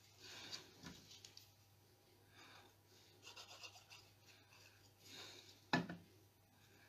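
Soft rustling and rubbing of card and paper pieces being handled on a craft mat, in several short swishes. Near the end a light knock as a plastic glue bottle is set down on the mat.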